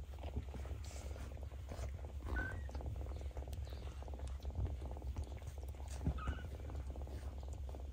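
Domestic cat purring steadily, with two brief high squeaks, one about two and a half seconds in and one about six seconds in.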